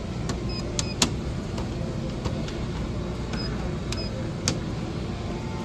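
Irregular sharp clicks and light ticks, about nine in all with the loudest about a second in, some with a brief high ring, over a steady low machine hum.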